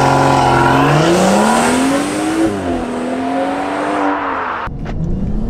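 BMW 540i's turbocharged 3.0-litre B58 inline-six with a downpipe, held at launch-control revs for about a second, then launching at full throttle. The revs climb, drop at an upshift about two and a half seconds in, and climb again.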